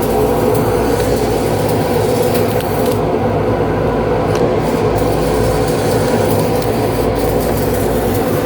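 A loud, steady mechanical drone with a buzzing hum, unchanging throughout.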